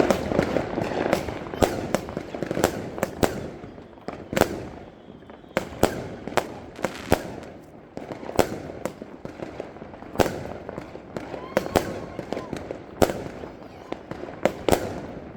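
Fireworks going off: an irregular string of sharp bangs and cracks over a background crackle, thinning out around four seconds in and picking up again about a second and a half later.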